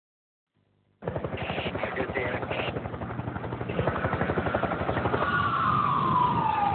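Helicopter rotor chopping rapidly, starting suddenly about a second in. Near the end a siren wail joins, falling in pitch.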